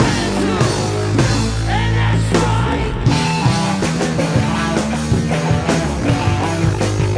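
Rock music with drums and bass.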